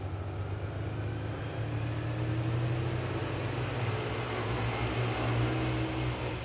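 A motor vehicle's engine running, with a steady low hum that grows louder through the middle and eases near the end, as of a vehicle passing nearby.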